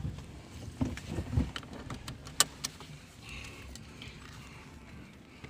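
Handling noises inside a car's cabin: a few soft thumps about a second in, then several sharp clicks, over a low steady rumble.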